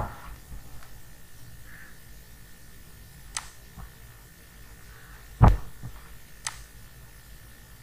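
A steady low electrical hum with a few sharp clicks of a computer mouse. One heavier thump about five and a half seconds in is the loudest sound.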